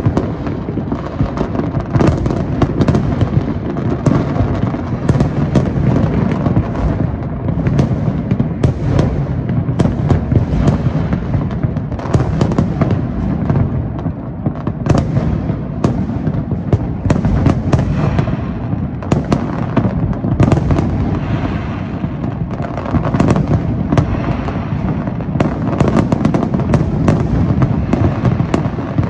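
Large aerial fireworks display: many shells bursting over one another in a loud, unbroken barrage. The steady rumble of bursts never lets up, and many sharp cracks stand out on top of it.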